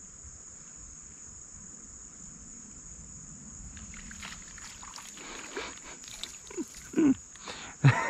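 Steady high-pitched drone of insects, with scattered clicks and splashes from about halfway as a small fish is fought and reeled in on a light spinning rod. Near the end come a couple of short, louder low sounds.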